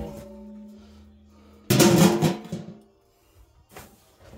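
Glass baking dishes knocking together as they are handled. A ringing tone carries over from a knock just before. A second hard clunk about 1.7 s in rings briefly, then a few faint taps follow near the end.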